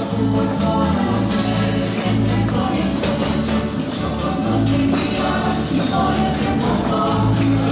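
Chilean folk dance music with a tambourine keeping a steady beat, pitched instruments and some singing.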